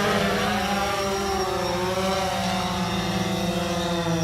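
DJI Phantom 4 quadcopter drone in flight, its rotors giving a steady multi-toned whine whose pitches drift gently up and down as the motors adjust.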